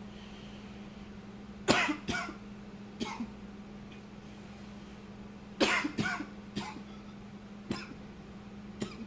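A man coughing in two bouts of three coughs, the first about two seconds in and the second a little past halfway, followed by two single coughs near the end.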